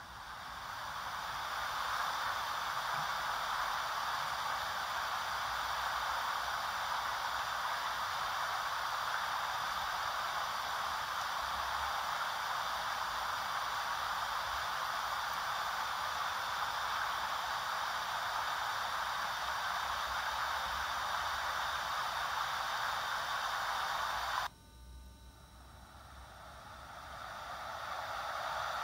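Steady rushing hiss from an old camcorder tape played back through the camcorder's small speaker. It swells in at the start, cuts off suddenly about 24 seconds in, then swells back up again.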